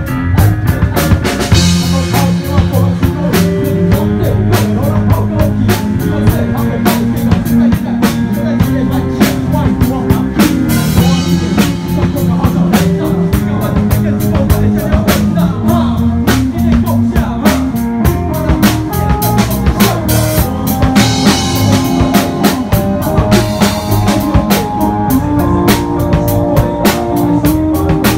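Band music with a steady drum-kit beat over bass and held notes.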